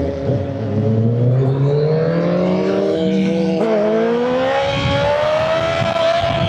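Inline-four sport-bike engine under acceleration, its pitch climbing steadily with the revs. About three and a half seconds in, the pitch dips briefly at a gear change, then it climbs again.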